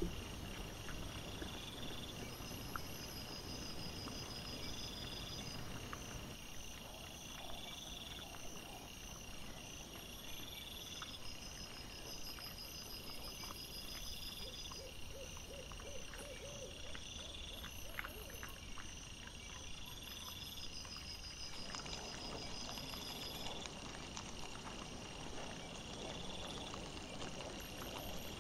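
Trail-camera night ambience: a steady hiss with a high chirp repeating every second or two, likely insects, and faint scattered clicks and rustles as wild boar and piglets root for food. The background noise shifts twice where the footage cuts between clips.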